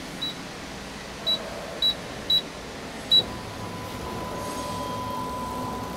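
Keypad on a CNC panel saw's control panel beeping five times, short high beeps as buttons are pressed. About three seconds in a steady whine sets in and holds: the stepper motor driving the fence along its ball screw to the set position.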